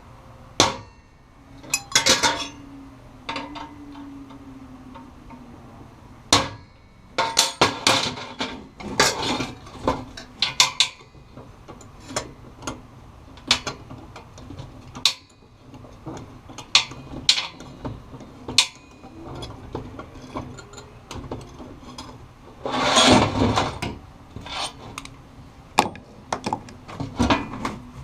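Irregular metallic clanks, taps and knocks of tools and steel being handled on a workbench, with a longer clattering scrape about 23 seconds in.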